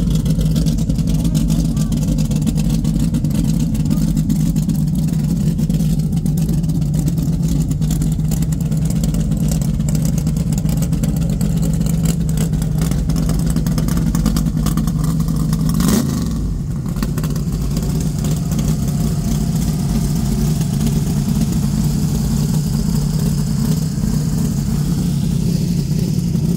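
Plymouth Barracuda's engine idling with a steady, rough low rumble. About sixteen seconds in it rises briefly in pitch with a light blip of the throttle, then sags for a moment before settling back to idle.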